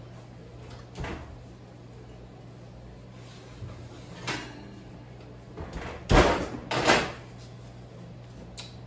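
A kitchen range's oven being opened and a heavy Dutch oven lifted out onto the gas stovetop grate, then the oven door shut: several separate knocks and clunks, the loudest two close together about six and seven seconds in.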